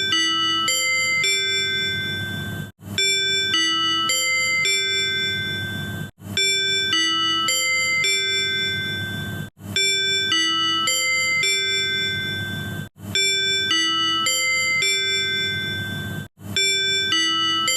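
Tobu 100 series Spacia onboard manual chime, the chime rung before a conductor's announcement or an on-board sales announcement. It plays a four-note ding-dong phrase ending on a held note, and the phrase repeats about every three and a half seconds over a low hum.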